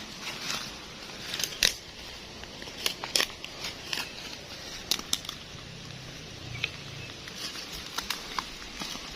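Irregular sharp crackles and clicks, with a few louder snaps about a second and a half and three seconds in, over a faint steady background; no chainsaw running.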